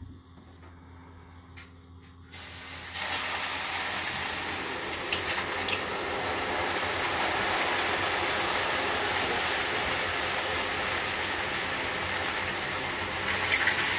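Water ladled into the closed stone chamber of a Grill'D Violet sauna stove flashing to steam on the hot stones: a loud steady hiss that starts about two to three seconds in and swells again near the end.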